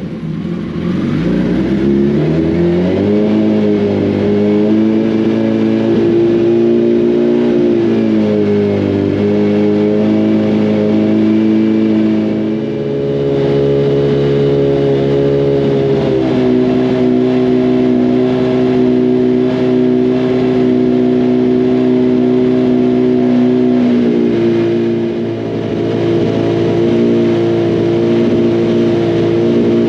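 Freshly rebuilt 2006 Suzuki Hayabusa inline-four engine revved up and held at steady raised speeds, dropping back and climbing again three times. This is a break-in heat cycle that varies the RPM so the new bearings and rings can settle in.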